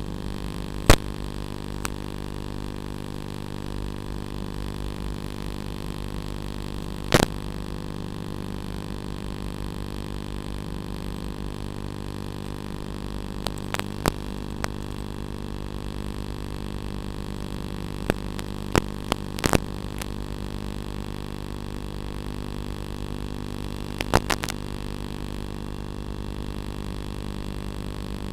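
Steady electrical buzzing hum that keeps the same pitch throughout, broken by sharp crackles: one about a second in, another near 7 s, then small clusters later on.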